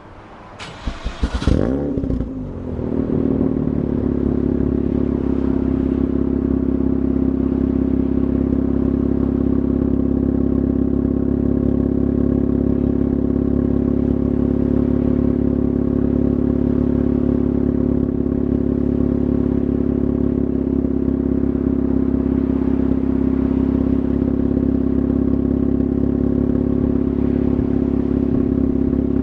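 Mazda RX-8's side-ported rotary engine, exhausting through an ERC straight pipe and large-diameter muffler, starts up in the first couple of seconds and settles into a loud, steady idle.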